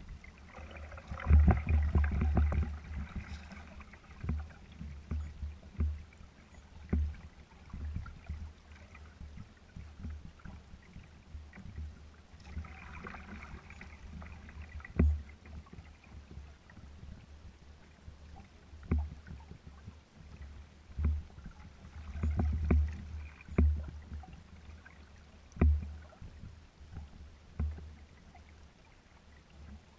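Small waves lapping and slapping against the hull of a kayak sailing slowly in light wind, in irregular slaps and low thuds. There are splashier spells about a second in, near the middle, and about two-thirds through.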